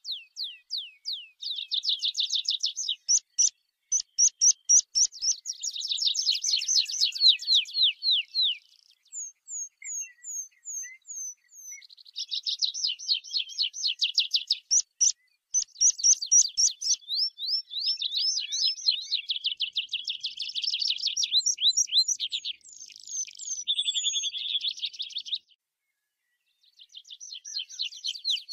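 Tree pipit singing: song phrases built of fast runs of repeated high notes, many sliding downward, one run following another with a short break near the end.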